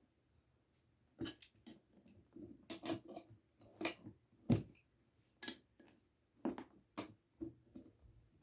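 Irregular sharp metal clinks and knocks, about a dozen over several seconds, from tools and bicycle parts being handled during a bike tube change.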